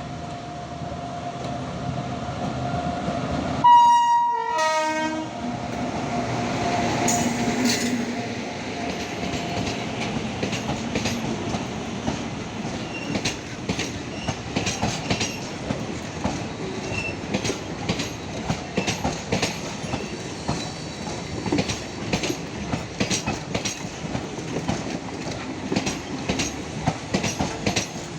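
A train's horn sounds once, briefly and loudly, about four seconds in, then the train runs past, its wheels clacking steadily over the rail joints. The train is the WAP-7 electric locomotive with Utkrisht coaches on the Begampura Express.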